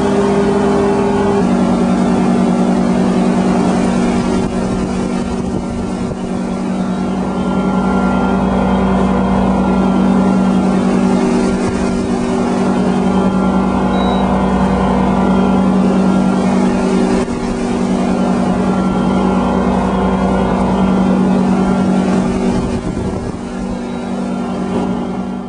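Tow boat's engine running steadily at speed, a loud, constant drone that drops slightly in pitch about a second and a half in.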